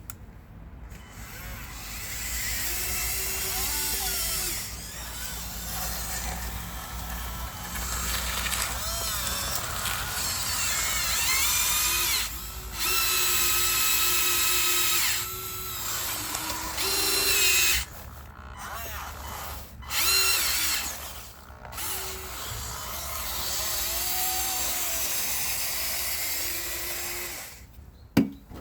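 Electric drive motors and plastic gearboxes of a Huina 1554 RC bulldozer whining, in runs of a few seconds that start and stop, the pitch rising and falling as the motors speed up and slow down.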